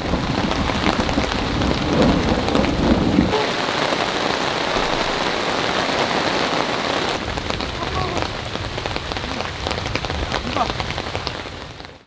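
Heavy rain falling steadily on a camping tarp, with a low rumble under it for about the first three seconds.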